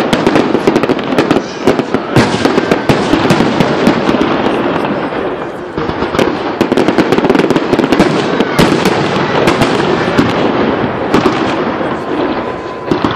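Fireworks display: rapid, overlapping bangs of aerial shells bursting, with crackling stars, many reports a second, easing briefly about six seconds in and thinning near the end.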